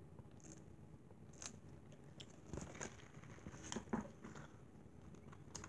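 Faint chewing and mouth sounds of someone eating, with a few soft clicks and crunches between about two and a half and four seconds in.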